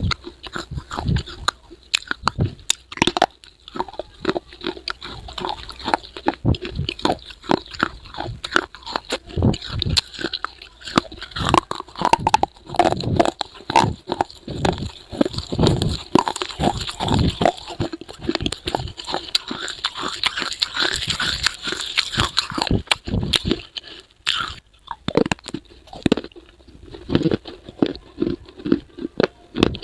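Close-miked biting and chewing of baked clay pot pieces: many irregular sharp crunches, with a brief lull about three-quarters of the way through.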